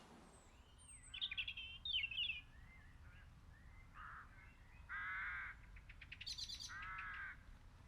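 Faint birds calling: a few quick, gliding chirps, then three longer, harsher calls of about half a second each.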